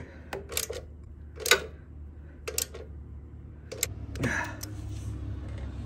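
Ratchet wrench clicking in short, scattered strokes as the oil tank mounting bolts are tightened, with a brief rustle about four seconds in.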